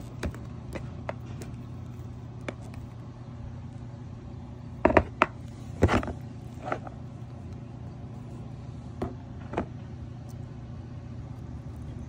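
Scattered hard clicks and knocks of a live king crab's shell and spiny legs being handled in a plastic tub, the loudest near five and six seconds in, over a steady low hum.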